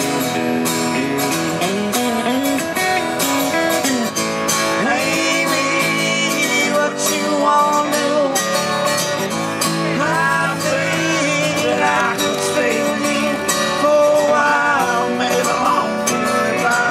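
Acoustic guitar and electric guitar through a small combo amp playing a country-style song together, with singing over them.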